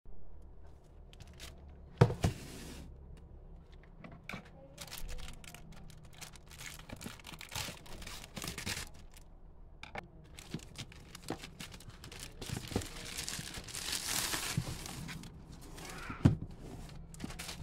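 Packaging being handled and opened: rustling, crinkling and tearing, with scattered clicks. Two sharp knocks, about two seconds in and near the end, are the loudest sounds.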